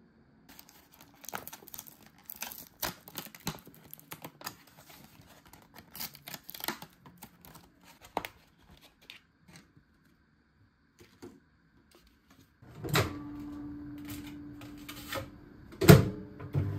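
Plastic food packaging handled, with a run of crackles and sharp clicks. After a pause, a microwave oven starts with a clunk and runs with a steady hum, with another loud clunk near the end.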